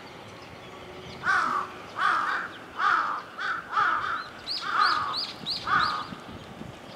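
A crow cawing repeatedly, about seven harsh caws starting about a second in and ending near the six-second mark, with a few faint, higher chirps from another bird among them.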